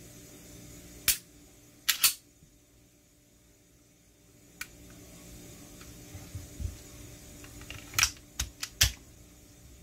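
Sharp metallic clicks and clacks from a Smith & Wesson M&P Shield .45 ACP pistol being handled: a single click about a second in, a quick double clack about two seconds in, and a cluster of four clacks near the end as the pistol is worked with both hands.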